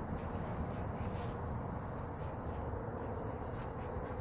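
A cricket chirping steadily, high-pitched pulses about five times a second, over a low steady background rumble.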